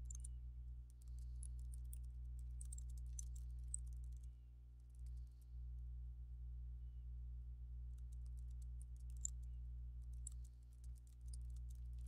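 Faint typing on a computer keyboard: bursts of quick key clicks broken by short pauses, over a steady low hum.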